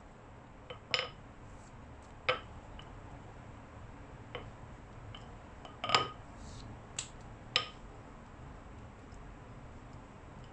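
Dough being rolled out by hand with a wooden rolling pin on a silicone baking mat: about six sharp light clicks and clinks as the pin is handled, the loudest about halfway through.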